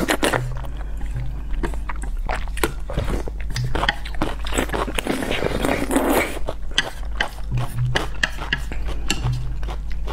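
Close-up eating sounds of noodles in a thick chilli sauce: wet mouth clicks and smacks, with a long slurp about five to six and a half seconds in.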